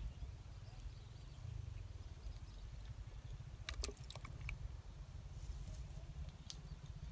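Faint outdoor background with a steady low rumble. A short run of small clicks and rustles comes about halfway through.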